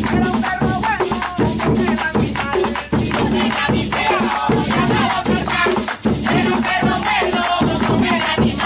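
Live folk percussion music: a tall hand drum struck with a stick, a rattling handheld percussion instrument and hand clapping in a steady rhythm, with voices singing over it.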